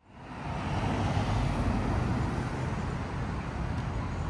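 Road traffic noise from passing cars, fading in over the first half second and a little louder in the first two seconds.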